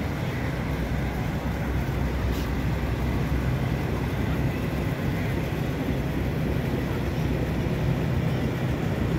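A boat's engine running steadily, a low, even drone with a hiss of wind and water over it.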